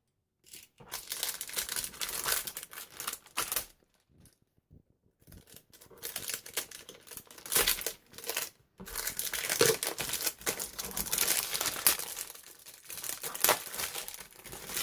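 Parcel packaging being cut and torn open, with plastic and paper wrapping crinkling and rustling in irregular bursts. It pauses briefly about four seconds in, then the crinkling becomes more continuous in the second half.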